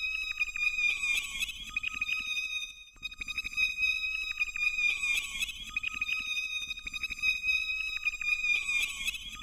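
Electronic soundscape: a steady high synthesized tone overlaid with crackling, chirping clicks that swell into a flurry about every four seconds, a repeating loop.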